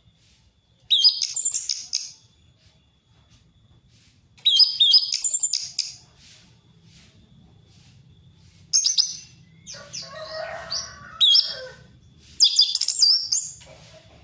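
Orange-headed thrush (anis merah) singing loud, open wild-type song: about five short bursts of rapid whistled notes that swoop up and down, separated by pauses. A lower, coarser sound mixes in about ten seconds in.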